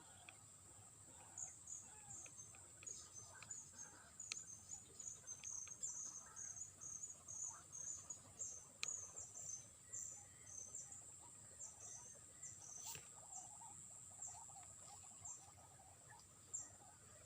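Faint high-pitched chirping of insects, short chirps repeating several times a second over a steady high insect drone, with a few faint clicks.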